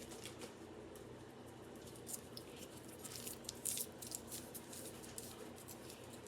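Faint, scattered crinkles and soft clicks of hands wrapping a sticky strip of Fruit by the Foot around a pickle, over a low steady hum.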